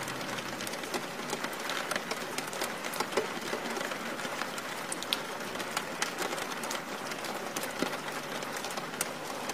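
Steady rain: an even hiss dotted with the ticks of individual drops.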